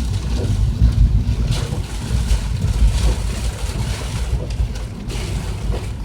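Car driving on a wet, rocky dirt road, heard from inside the cabin: a steady low rumble of engine and tyres, with the hiss of water and rain over it.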